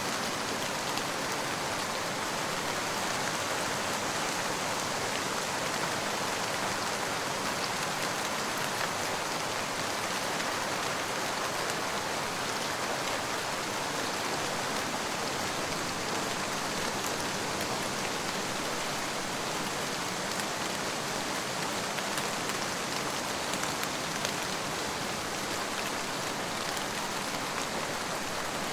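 Steady, even rain falling and pattering on a surface, with faint scattered drop ticks.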